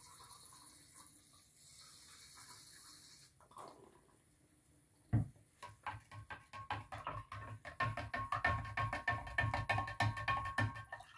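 A spoon stirring briskly in a large glass jar of salt water, clinking against the glass several times a second with a faint ringing, as lye solution is mixed in to raise the pH. Before the stirring there is a faint steady hiss, and a single knock about five seconds in.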